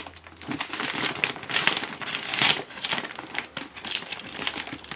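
Paper sack of dry dog food crinkling and rustling in irregular bursts as it is opened and handled.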